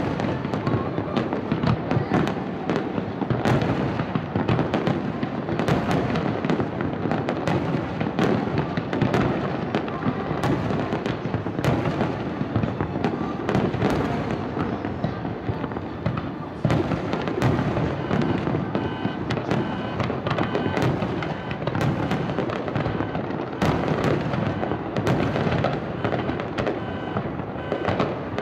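Fireworks display at full intensity: many aerial shells bursting in rapid, overlapping succession, a continuous barrage of sharp bangs with no pause.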